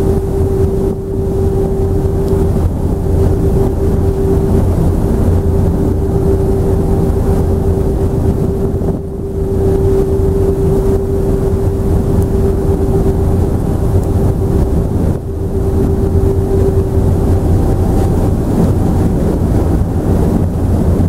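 Sightseeing ship's engine running steadily, a low drone with a constant hum heard from on board.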